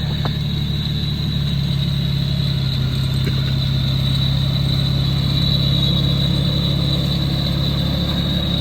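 Turbocharged car engine idling steadily, with a thin, high, steady whine from the turbo over the low engine hum. The turbo is very loud, which the owner puts down to a turbo that needs rebuilding.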